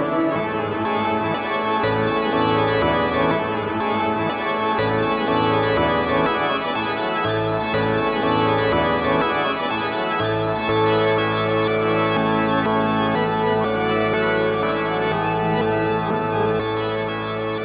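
Instrumental electronic music of sustained organ-like chords; a low bass fills in about ten seconds in.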